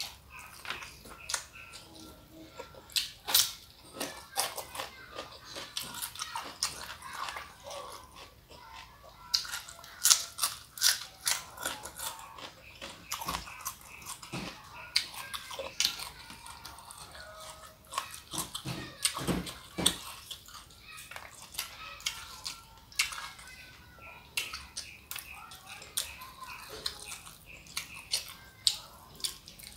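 Close-miked eating sounds: wet chewing, lip smacks and finger licking as food is eaten by hand, made up of irregular sharp clicks, with a few louder knocks about nineteen seconds in.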